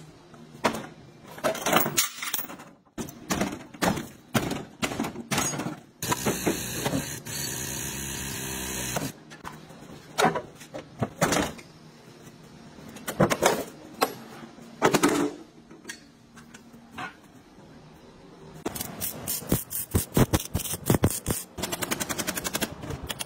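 Hammer blows on the steel body panels of a crashed car, irregular knocks and a fast run of taps near the end, broken by a few seconds of steady tool noise.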